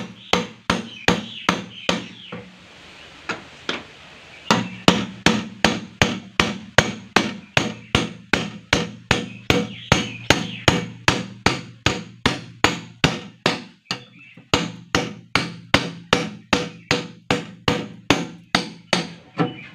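A hammer striking a blade held against the tin lid of a metal drum, cutting through the tin. It goes in a steady run of sharp metallic blows, about three a second, with a pause of about two seconds near the start and a brief break later on.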